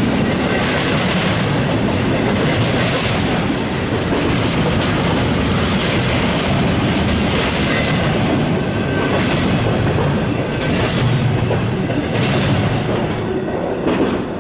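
Double-stack intermodal freight train rolling past at speed: a steady rumble of container well cars with the wheels clacking rhythmically over the rail joints. The last car passes near the end.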